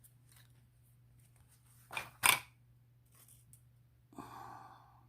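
Two sharp metallic clicks about a quarter second apart, roughly two seconds in: a lock pick being zipped across the pin tumblers of a vintage Ilco padlock. A short breathy hiss follows near the end.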